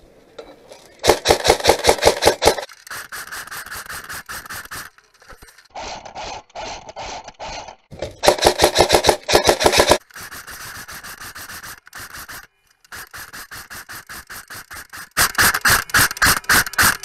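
Airsoft rifles firing rapid full-auto bursts of sharp clicks. Loud bursts come about a second in, around the middle and near the end, with quieter bursts between them.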